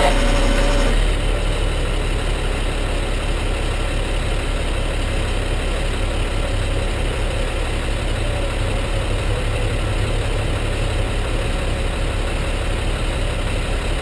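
Tow truck engine idling steadily. A louder, higher whine that was running stops about a second in.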